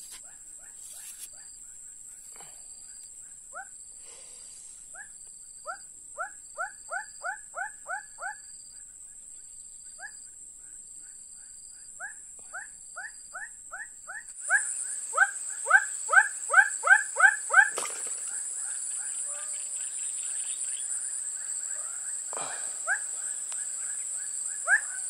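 Wild animal calls: runs of short downward-sliding chirps, about four a second, that come in bursts and get louder about halfway through. Beneath them run a steady high-pitched insect drone and a soft short peep repeating about once a second.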